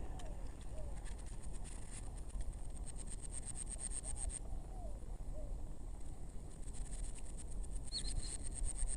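Swamp ambience: a high, fast-pulsing insect trill that stops about four seconds in and starts again near the end. It is joined by a few short, low warbling calls and a brief chirp near the end, over a steady low rumble.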